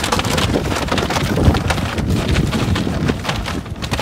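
Brown paper grocery bag rustling and crinkling as it is handled, dense and crackly, over wind buffeting the microphone.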